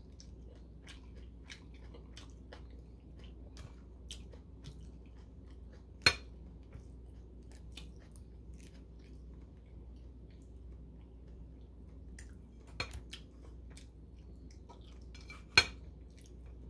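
Quiet chewing and mouth sounds of a person eating, with three sharp clinks of tableware against dishes: one about six seconds in, one near thirteen seconds, one near the end.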